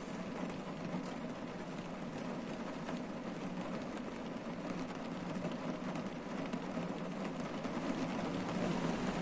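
Rain falling steadily on a car's roof and windshield, heard from inside the cabin.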